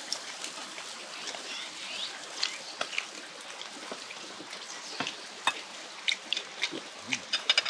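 Pork slices sizzling on a grill, a steady hiss broken by many sharp crackles and clicks.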